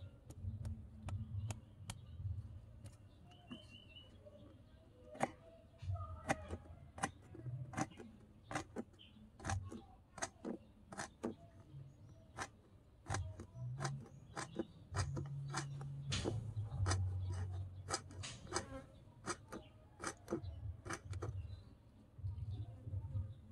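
A small kitchen knife chopping winged bean pods on a wooden cutting board. Each stroke gives a sharp knock of the blade on the board, irregular at about one to two a second, starting about five seconds in, over a steady low rumble.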